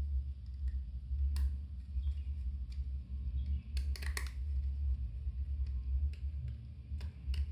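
Small screwdriver turning screws into a lens mount: a few light clicks and taps, about a second in, around four seconds in and near the end, over a steady low hum.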